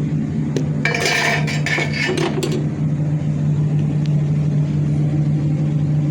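Hard objects clattering and clinking against each other for about a second and a half, starting about a second in, over a steady low hum.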